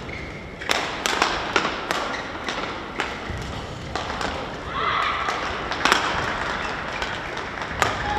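Badminton doubles rally: rackets striking a shuttlecock back and forth, sharp hits every third to half second or so, the last one near the end.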